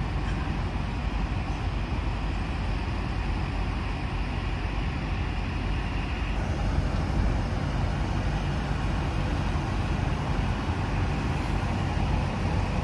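Steady low rumble of idling semi-truck diesel engines and passing traffic around a truck parking lot.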